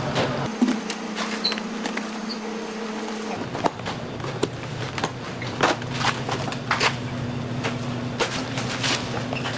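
Steady machine hum with scattered sharp clicks and knocks from about a third of the way in, from yellow plastic strapping being pulled off cardboard boxes of frozen crabs.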